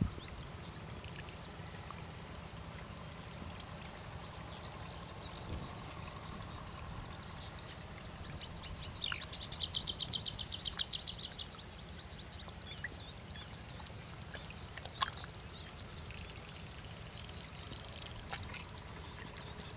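Quiet steady outdoor background with birds singing: a rapid trill about nine seconds in, and another, higher and quicker trill near fifteen seconds.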